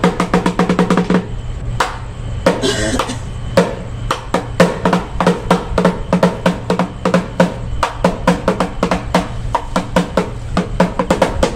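Drumming for a Vietnamese monkey dance (múa khỉ): a fast, steady run of drum strikes that pauses a little over a second in and then picks up again.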